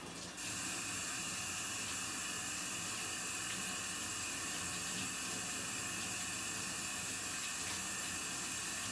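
Water tap turned on and running steadily into a sink.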